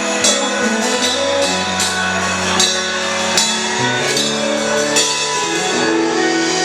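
Band music without vocals: held bass notes, guitar and keyboard chords, and drums keeping a steady beat with accented hits a little under a second apart.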